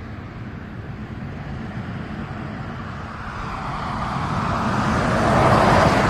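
A car approaching along a highway, its tyre and road noise growing steadily louder and peaking near the end as it passes.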